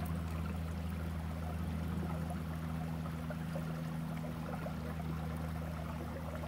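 Creek water running steadily, with a steady low hum underneath.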